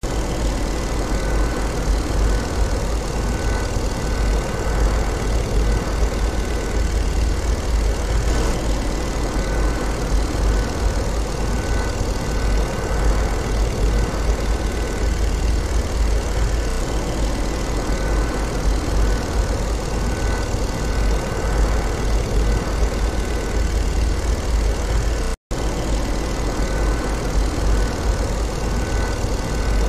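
Steady drone of a warplane's engine, a dense rumbling noise heavy in the low end. It cuts out for an instant about 25 seconds in, then resumes unchanged.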